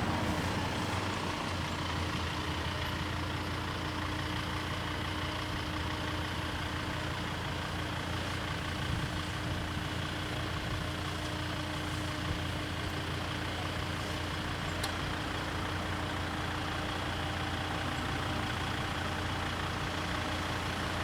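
A vehicle engine idling, a steady low drone with a constant hum that stays at one level throughout.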